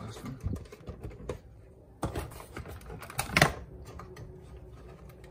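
Plastic clicks and knocks from the boiler's control-box cover as its clip tabs are popped and it is folded down, with the loudest snap about three and a half seconds in.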